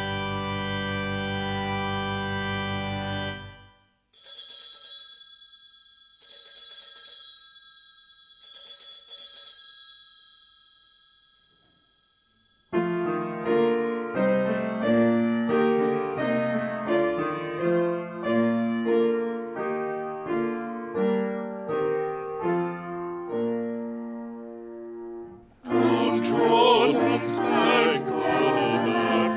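Church music: a held organ chord stops suddenly and three bell-like chimes ring out about two seconds apart. After a short pause a keyboard plays a run of notes, and a few seconds before the end a louder passage of music with singing begins.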